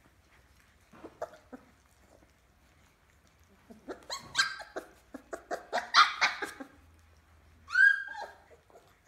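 A litter of puppies jostling at a food dish, yipping and squealing in a quick, overlapping burst in the middle, with one drawn-out yelp near the end.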